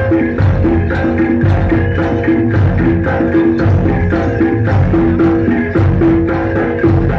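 Live jaranan kuda lumping music: a percussion ensemble of drums and tuned gongs playing a steady, driving rhythm, with a low drum beat, repeated ringing gong notes and jangling metal percussion.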